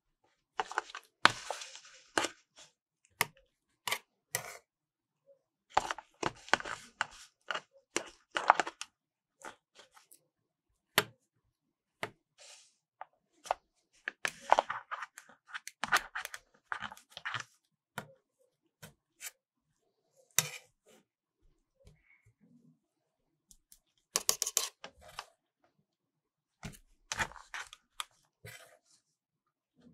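Metal tongs clicking and scraping as frozen rolled ice cream is lifted and pushed into a paper cup, the rolls rubbing against the cup's sides. Short spells of scraping and sharp clicks come with pauses between.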